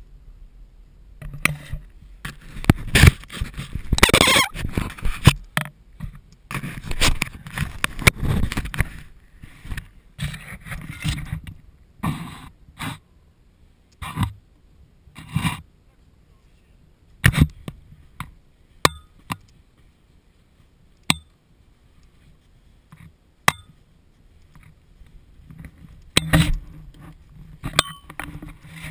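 Snowboard gear and the camera handled in the snow: irregular rustling and scraping, with several sharp, ringing clicks spaced a second or two apart in the middle, then more scraping near the end.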